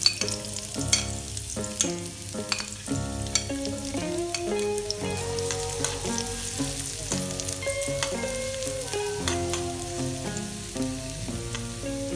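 Minced garlic and chilli sizzling in hot oil in a metal wok, with a metal spoon clinking and scraping against the pan as they are stirred, over background music.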